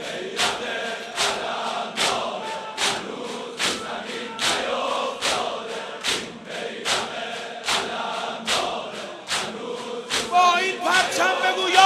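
A large crowd of mourners beating their chests in unison, a sharp slap about every 0.8 seconds, with group chanting between the beats. About ten seconds in, a solo male voice begins singing through a microphone over the beating.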